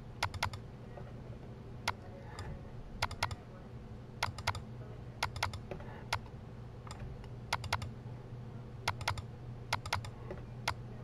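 Computer mouse clicking, mostly in quick double-clicks about once a second, as raster bands are picked from a list, over a faint steady low hum.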